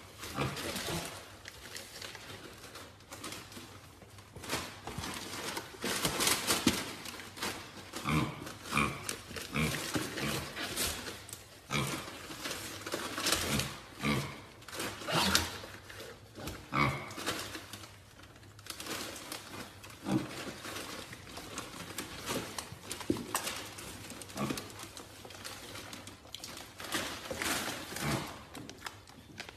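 A small animal scrabbling and rustling about inside a cardboard gift box, with irregular clatters and short grunts now and then.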